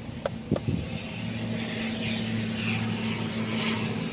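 A steady low motor-like hum that swells in about a second in and holds, with a few sharp clicks near the start.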